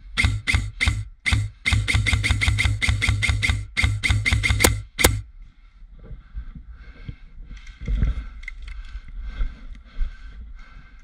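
Suppressed Krytac M4 Trident SPR Mk2 airsoft electric gun firing: quick single shots, then a rapid string of shots, each with the brief whirr of the gearbox, stopping about five seconds in. Fainter, irregular clicks and rustling follow.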